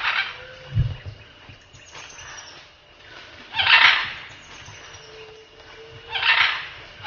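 Scarlet macaws giving loud, harsh, rasping squawks as they squabble in a treetop. One call trails off at the start, a long one comes about three and a half seconds in, and another near six seconds.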